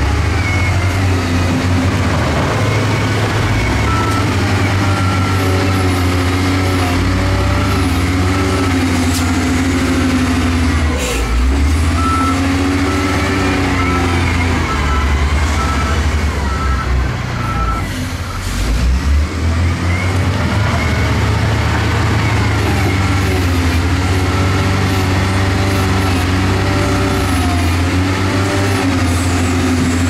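Heavy diesel earthmoving machinery running under load, its engine revs rising and falling. A reversing beeper sounds in intermittent beeps from about four seconds in until about eighteen seconds in.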